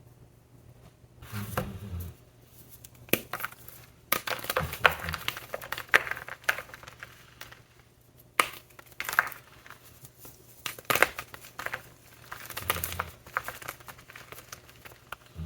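Blocks of ETHOS gym chalk topped with shaving gel and glitter being crushed: irregular crunching and crumbling, with sharp cracks and short pauses between handfuls.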